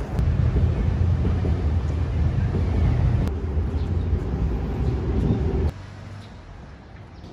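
Loud low rumble of city road traffic, which cuts off abruptly about two-thirds of the way through to quiet street background.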